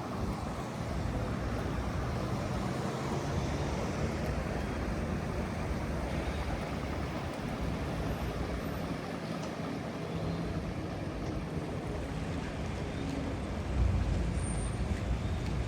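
Outdoor city ambience dominated by a steady low engine rumble, with a brief louder swell near the end.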